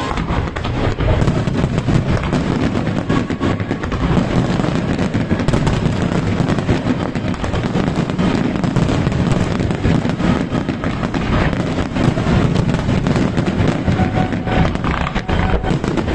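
Fireworks finale barrage: a dense, unbroken run of rapid bangs and crackling over a steady rumble of booms.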